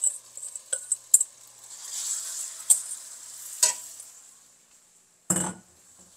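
Pieces of goby fish scraped with a spoon from a metal bowl into a wok of hot caramelized sugar and oil: quick clinks of spoon on metal, then a sizzle that fades away. A single loud thump near the end.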